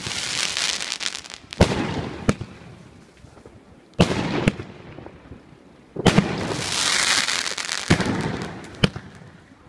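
Mixed-calibre (30/38/50 mm) consumer fireworks cake firing: sharp bangs a second or two apart, several of them trailed by a long crackling hiss.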